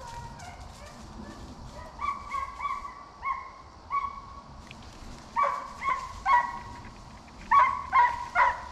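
Hunting hound baying: about ten short bawling calls in three loose bunches, quickest near the end, as a deer-drive hound gives tongue.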